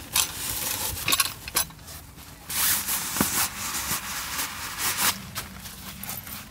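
Rustling and crinkling of a stiff sheet being unfolded and shaken out by hand, with sharp crackles scattered through it. It is loudest about two and a half seconds in.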